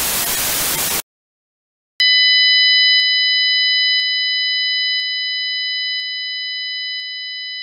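Synthetic radio test signal: Gaussian white noise hiss that cuts off about a second in, a second of silence, then phase-coherent 2, 3, 4 and 5 kHz sine waves sounding together as a steady high chord that drops in loudness in a step every second, with a faint click at each step.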